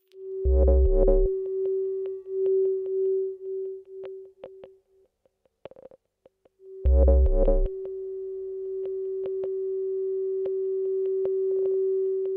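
Electronic music: a held synthesizer tone at one pitch that pulses, fades away, then returns and holds steady. Two short, loud, deep chords cut in, about six seconds apart, with scattered clicks between.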